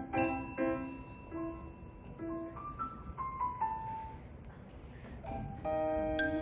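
Piano being played in short separate notes, with a single high, ringing ding like a small bell struck about a fifth of a second in. A quieter run of falling notes follows, and a loud chord is struck and held near the end.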